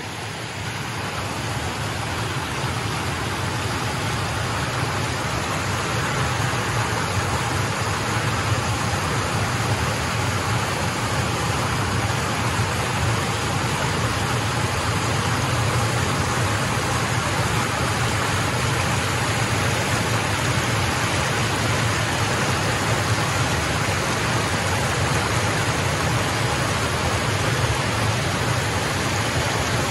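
Rushing water pouring over the steps of a concrete river weir, a steady loud roar of white water. It fades in over the first few seconds, then holds even.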